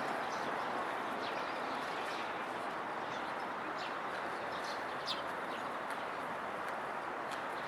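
A train's running noise dying away steadily as it moves off from the level crossing, with short high bird chirps scattered throughout.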